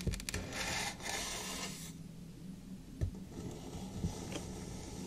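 Kinetic sand being worked close to the microphone: a grainy scraping for about the first two seconds, then two soft thumps about a second apart.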